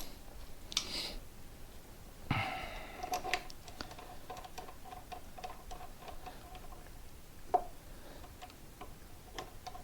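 Small metallic clicks and taps from hands-on work refitting a motorcycle's front wheel and lining up its bolts. A knock about two seconds in is followed by a faint ringing tone that fades over several seconds, and a sharper click comes about seven and a half seconds in.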